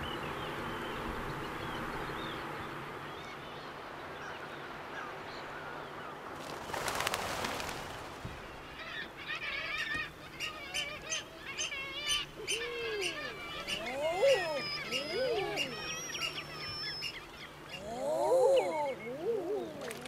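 A steady background rush opens the clip, with a brief loud burst of noise about seven seconds in. Then a chorus of seabirds begins: common eider drakes cooing with repeated rising-and-falling calls, over many higher chattering bird calls.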